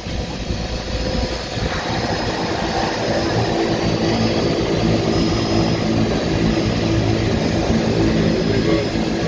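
Seaplane turboprop engine running at low power on the water just after landing, its propeller turning slowly. It makes a steady engine drone with an even low hum that settles in about two seconds in.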